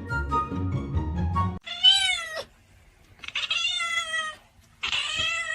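Background music with a beat that stops about a second and a half in, followed by a cat meowing three times, long calls that rise and fall in pitch.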